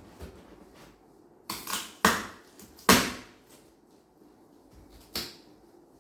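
PC case packaging being handled during unboxing: about four short rustling, crinkling bursts, the loudest about three seconds in.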